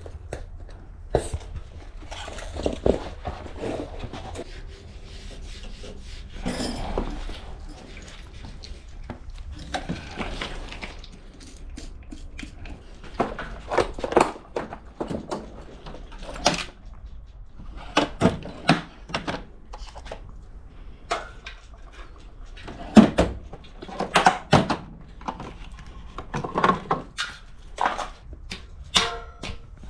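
Hand work on a mountain bike wheel and tire: irregular clicks, knocks and clatter, with a few short rustling or scraping stretches.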